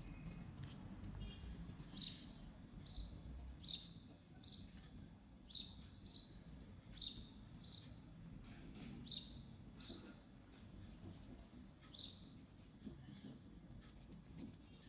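A bird chirping over and over in short, high calls, about one every three-quarters of a second, starting about two seconds in and stopping near the end, over a faint low hum.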